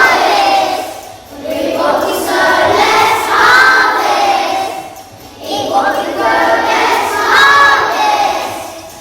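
A group of children singing together in unison, in long phrases with short breaths between them.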